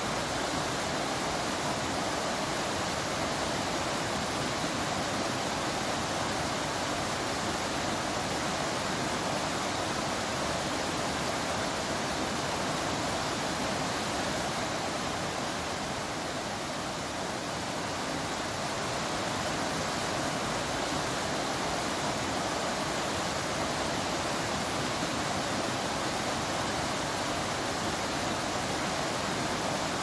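Steady rush of a small rocky stream running over stones, with rain falling through the forest.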